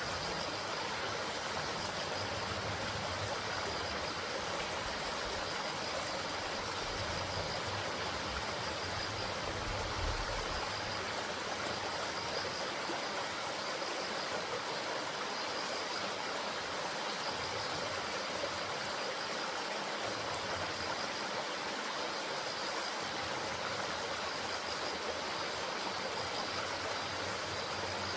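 Small mountain valley stream flowing steadily, an even rushing of water. A low rumble underneath stops about ten seconds in.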